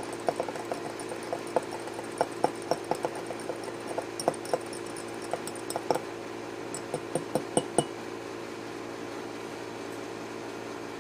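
Metal spoon stirring coffee in a ceramic cup, clinking against the sides several times a second, stopping about eight seconds in. A steady low hum runs underneath.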